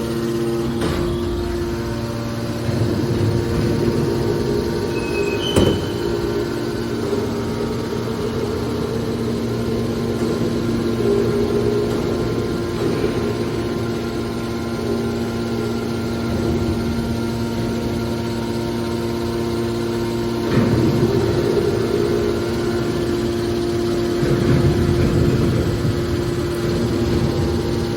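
Hydraulic metal baler running: a steady motor-and-pump hum, with rougher, louder stretches as it works, presumably compressing scrap iron wire. One sharp metallic knock comes about five seconds in.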